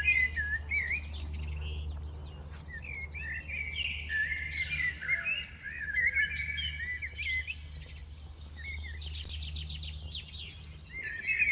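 Several songbirds singing and chirping together, with quick warbling phrases and rapid trills overlapping throughout, over a steady low rumble of background noise.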